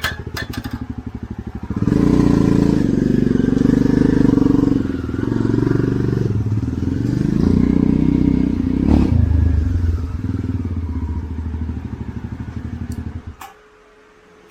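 Jawa Perak single-cylinder motorcycle engine running. It gets louder about two seconds in, with revs rising and falling, then cuts off abruptly near the end.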